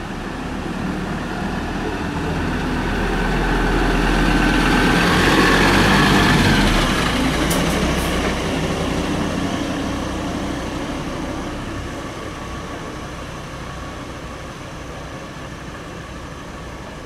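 A vehicle passing by: its rumble swells to a peak about five or six seconds in, then slowly fades away, with a faint whine that drops slightly in pitch near the peak.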